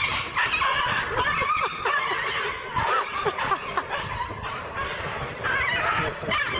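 Human laughter, going on and off throughout.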